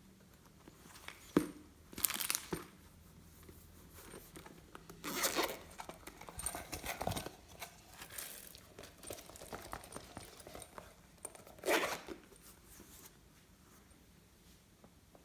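Glossy slime being worked and mixed by hand: irregular sticky crackles and squishes, with a few louder bursts scattered through.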